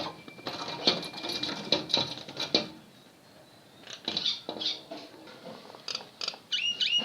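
Birds making rapid scratchy chirps and clicking, scuffling sounds. These die down about three seconds in, then start again, with a few short swooping squawks near the end.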